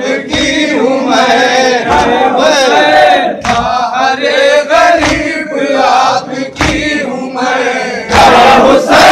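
A group of men chanting a Muharram noha lament in unison, with a chest-beating (matam) strike about every second and a half. Near the end the crowd breaks into loud shouting.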